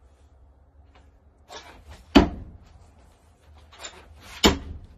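Two thrown knives hitting the target about two seconds apart, each strike a sharp knock with a short rustle of the throwing motion just before it.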